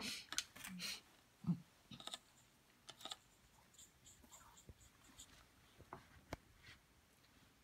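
Quiet scrapes, taps and clicks from painting materials being handled, a brush working in a paint dish among them. They are busiest in the first three seconds, then thin to a few faint ticks.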